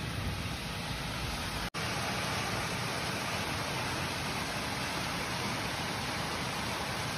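Heavy rain falling in a steady hiss. The sound breaks off for an instant about two seconds in, then the hiss carries on brighter.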